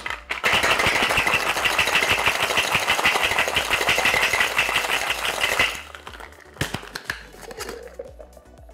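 Cube ice rattling hard inside a tin-on-tin metal cocktail shaker during a vigorous shake, a fast dense rattle lasting about five seconds that stops abruptly. A few metal clinks follow as the shaker tins are pulled apart.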